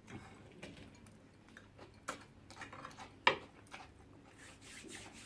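Small scattered clicks and light clinks of tableware during a meal, with one sharper click a little over three seconds in.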